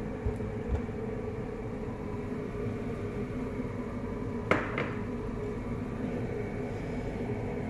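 A steady low mechanical hum with a faint even hiss, broken about halfway through by a sharp tap and a smaller one just after.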